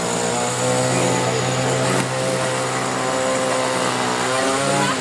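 A small engine drones steadily, rises in pitch just before it stops near the end.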